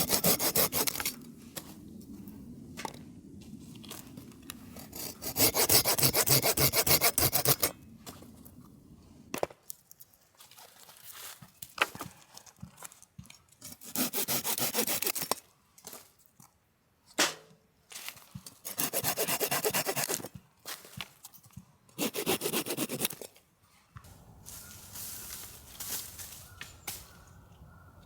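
Hand saw cutting firewood: several short runs of quick, rasping strokes, the loudest about five to seven seconds in, separated by pauses with small knocks of wood being handled.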